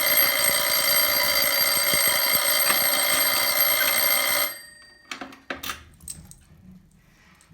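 Fire alarm sounder on a hobby alarm board, set off from a Simplex T-Bar pull station, giving one loud, steady buzzing tone for about four and a half seconds, then cutting off suddenly. A few sharp clicks follow.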